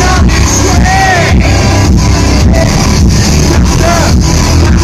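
Live rock band performance, very loud: electric guitar riffing over drums with a steady beat, with crowd voices yelling along a couple of times.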